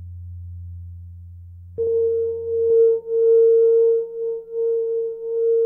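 Experimental electronic drone music. A low hum is joined about two seconds in by a loud, steady pure tone that cuts in suddenly and wavers in loudness, while the low hum fades away.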